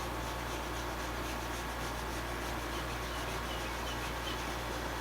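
Faint, rhythmic scrubbing of a paintbrush on canvas over a steady low hum, with a few faint high squeaks midway.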